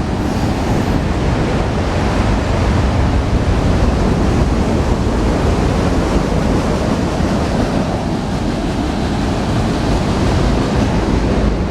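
Freight train cars rolling past, a steady loud rumble of wheels on rail.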